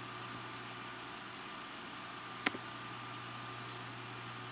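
Steady hiss and low electrical hum of the recording setup, with a single sharp computer mouse click about two and a half seconds in.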